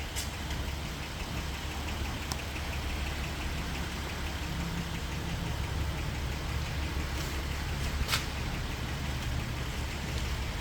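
A 2009 Honda Odyssey's V6 engine idling steadily, with a few light clicks about two and eight seconds in.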